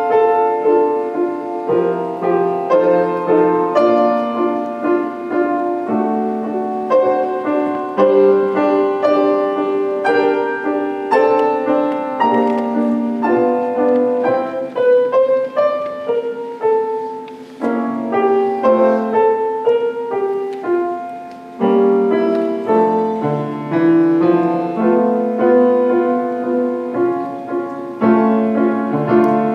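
Grand piano played solo: a piece of many quick notes running over a lower line, with two short breaks between phrases a little past the middle.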